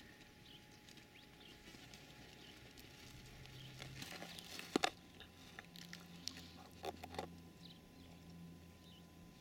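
Wolfdog pup sniffing and nosing in dry dirt and grass close to the microphone: faint scratching and rustling, with a few sharp clicks about halfway through and again a little later. Faint bird chirps in the background.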